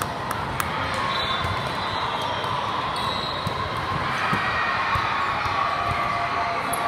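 Volleyball tournament hall din: a steady wash of noise from players and spectators, broken by frequent sharp smacks and bounces of volleyballs.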